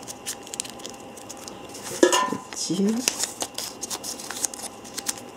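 A paper slip rustling and crinkling as it is folded by hand, with many small crisp crackles. A brief voice murmur about two seconds in is the loudest moment.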